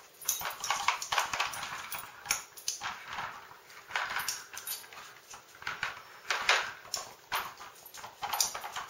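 A dog nosing and pawing at a Nina Ottosson Dog Tornado plastic treat puzzle on a tile floor: irregular clacks and rattles of the plastic layers and bone piece, mixed with sniffing.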